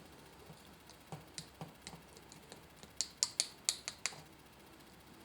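Scattered light clicks and taps of a kitchen sieve and glass, a quick cluster about three seconds in, while a shallot infusion is strained into the glass.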